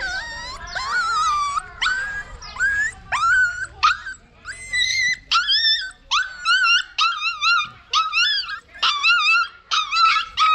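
Young puppies whining: short, high-pitched cries in quick succession, a little more than one a second, each rising or wavering in pitch. The whining is a sign of fear.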